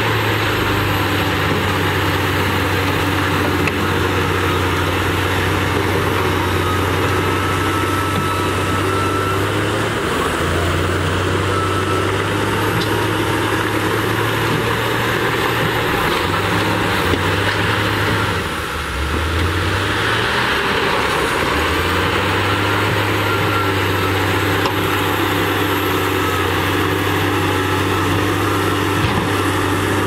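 Heavy diesel dump truck engines running steadily while the beds tip up to unload soil. The low engine note shifts a few times, with a brief dip partway through.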